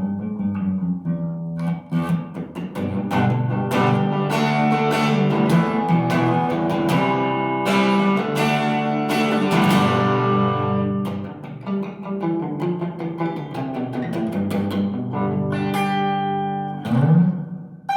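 Fender HSS Telecaster electric guitar played through a Vox AC30 amp on a clean, low-gain sound: a run of picked notes and chords, with a note sliding up near the end.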